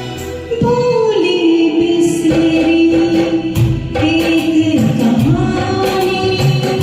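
A woman singing a Hindi film song over recorded backing music. Her voice enters about half a second in, holding long notes that slide downward, with light percussion beneath.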